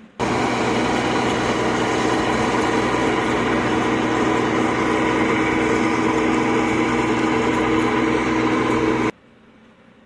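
Bizon Z056 combine harvester's engine and threshing machinery running at steady working speed while cutting grain: a loud, even drone with several held tones. It starts abruptly and cuts off sharply about a second before the end.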